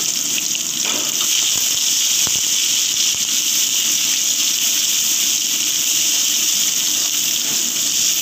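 Chopped onion sizzling in hot mustard oil in a wok, stirred with a spatula: a loud, steady, high hiss of frying.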